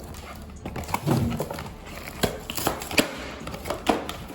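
Hard plastic toy parts being handled and pried apart: a dull bump about a second in, then several sharp plastic clicks and snaps as the capture-gear pieces are worked off the T. rex figure.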